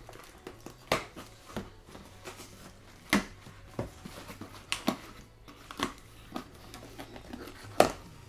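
Packages and their contents being handled and opened by hand: a series of sharp clicks and knocks, irregular and roughly a second apart, with the loudest one near the end.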